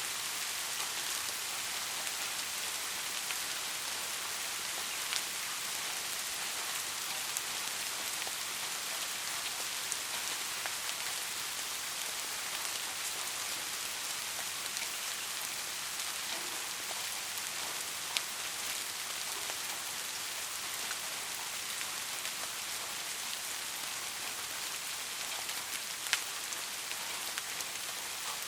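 Steady rain falling, an even hiss with scattered sharper drop ticks, a few louder ones standing out.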